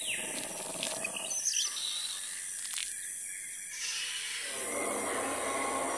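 Bird calls and chirps over a steady high insect chirring, with a sharp click a little under three seconds in.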